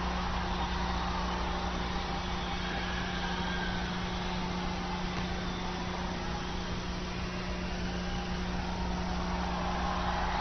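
Large concert crowd cheering and screaming steadily, a continuous roar with a steady low hum underneath.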